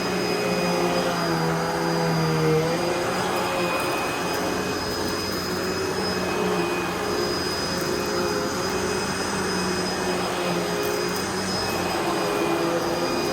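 2008 Hoover Pet Vac Rewind Legacy upright vacuum cleaner running steadily, its motor hum shifting pitch briefly about two and a half seconds in.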